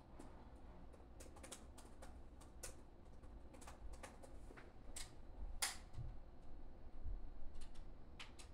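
A run of irregular light clicks and taps, about a dozen, with the sharpest one a little past halfway, over a faint steady low rumble.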